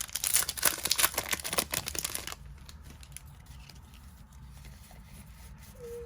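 Yu-Gi-Oh booster pack wrapper crinkling and tearing open for about two seconds, then only faint small clicks.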